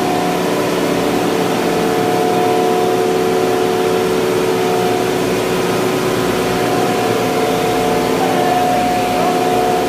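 Ice plant machinery running: a loud, steady mechanical drone with several steady whining tones over it.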